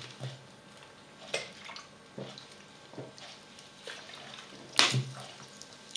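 A person drinking cola from a plastic bottle: quiet gulps and liquid sloshing with bottle handling, and one louder, sharp sound a little before the end.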